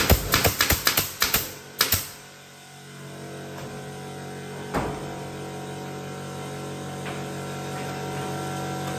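Pneumatic nail gun firing nails into wooden ceiling battens: a rapid string of sharp shots in the first second and a half, two more just before two seconds in, and one more about five seconds in. Background music runs underneath.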